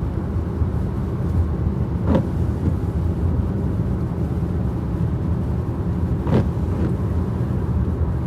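Steady low rumble of a car driving, with two brief knocks about two seconds and six seconds in.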